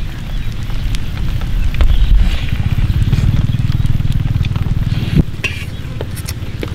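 Crackling and sharp clicks of crisp cooked sheatfish (Wallago attu) being torn apart and chewed, over a steady low rumble.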